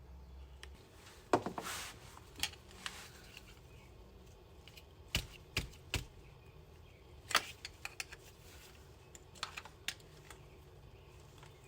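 Scattered light clicks and taps of the new automatic transmission filter and its parts being handled and fitted by hand, irregular and faint.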